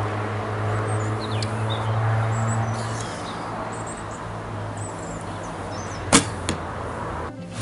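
A steady low hum fills the first few seconds. About six seconds in comes the single sharp crack of a 45 lb Samick takedown recurve's string on release, the loudest sound here, followed about a third of a second later by a softer knock as the arrow strikes the target.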